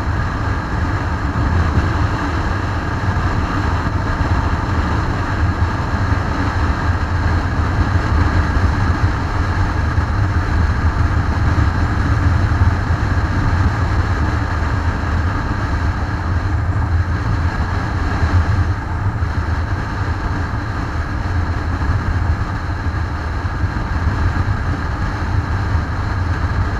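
Motorcycle cruising at steady highway speed, heard from a camera on the bike: a constant low engine drone mixed with wind and road noise.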